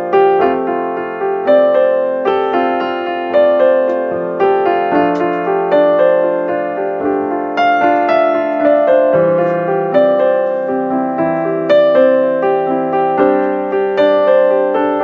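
Background music: a piano playing a melody of single notes and chords in a steady rhythm.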